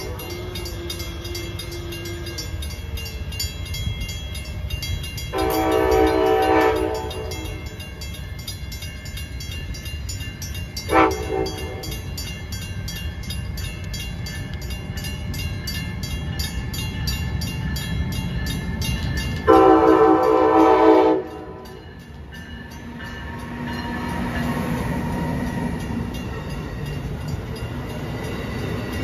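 Amtrak electric locomotive sounding its horn at a grade crossing: a long blast about five seconds in, a short toot near eleven seconds and another long blast about twenty seconds in. The train then passes close by, its wheels rumbling on the rails.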